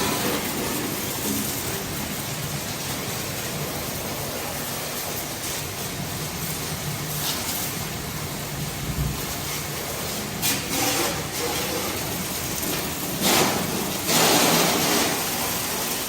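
Steady hiss of water spraying during vehicle washing, with a few louder gushes of spray about two-thirds of the way through and near the end.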